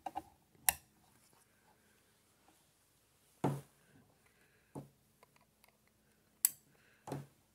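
Ethernet (RJ45) cable plugs being pushed into the ports of a network gateway and a PoE injector: two sharp clicks, about a second in and near the end, with three duller knocks of the devices and cable being handled in between.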